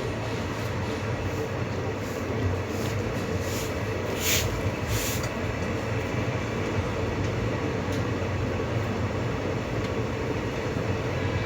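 ICF passenger coach running along the track, heard from on board: a steady rumble with a low hum, and a few brief high-pitched noises about four to five seconds in.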